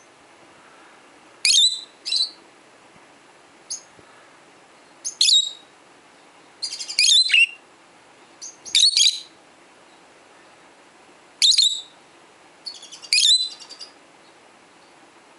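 Small pet parrots calling with loud, shrill chirps, each a quick falling note, about eight of them spaced a second or two apart.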